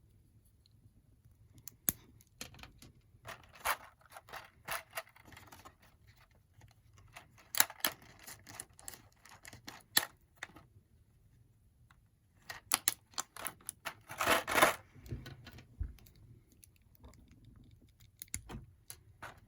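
Small plastic clicks and short bursts of rustling from an action figure and its parts being handled, in uneven clusters, the busiest and loudest about two thirds of the way through.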